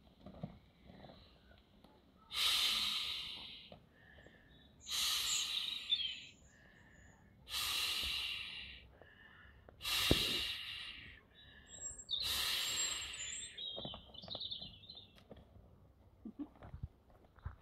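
Five long breaths blown by mouth into the valve of an inflatable dragon swim ring, about one every two and a half seconds, with faint bird chirps in the gaps.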